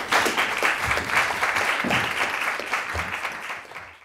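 Audience applauding at the end of a lecture, a dense steady clapping that fades away near the end.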